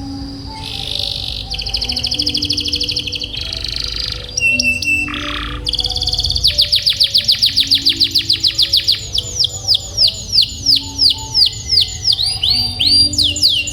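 Domestic canary singing long rolling trills of rapidly repeated high notes. About halfway through a very fast roll begins, then slows into distinct falling notes, a few per second, near the end.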